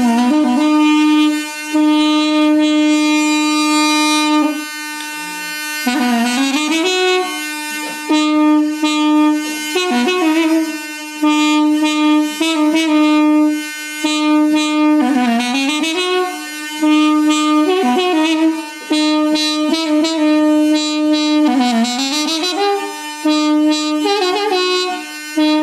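Instrumental music: a reed wind instrument plays an ornamented melody with sliding bends over a steady drone on one held note.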